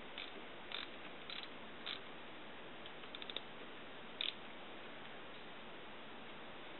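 A few short metallic clicks and ticks as the oil filter screen plug on a GY6 scooter engine is worked loose by hand. A quick run of four or five ticks comes about three seconds in. Steady hiss lies underneath.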